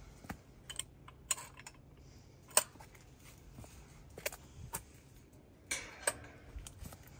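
Scattered light clicks and knocks at irregular intervals, with a sharp click about two and a half seconds in and a brief rustle near six seconds, over a faint steady low hum.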